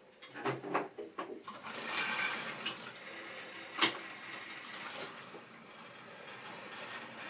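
Tri-ang or Lima model railway goods train of tank wagons and a brake van running along the track: a steady rushing, rolling noise with a few clicks near the start and one sharp click about four seconds in.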